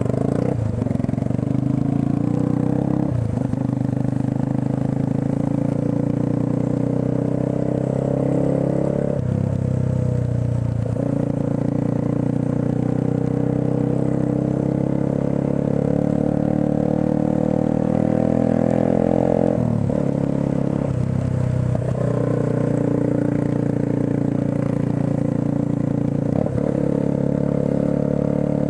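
Motorcycle engine running while riding on a wet road, its note rising and then breaking several times, as at gear changes.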